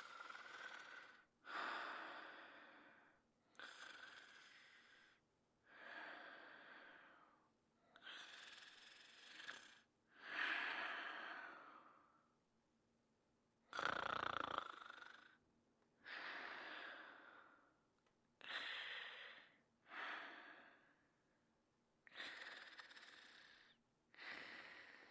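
A sleeping animated character snoring: a slow, regular run of breathy snores, each one to two seconds long, with a louder, deeper snort about fourteen seconds in.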